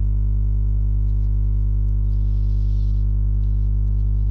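Steady electrical mains hum at a low pitch with a ladder of overtones, holding at one level throughout, with a brief soft rustle about two seconds in.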